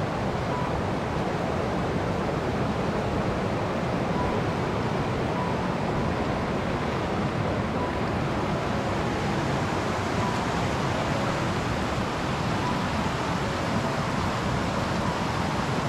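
Tirthan River water rushing steadily, an even, unbroken noise.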